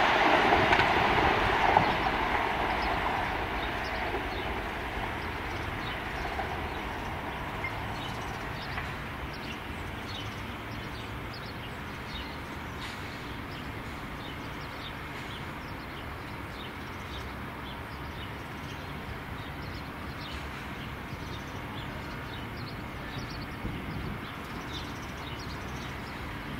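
Melbourne High Capacity Metro Train, an electric suburban train, passing close by and running off down the line, its rumble loudest at first and fading over about ten seconds to a faint, steady distant hum.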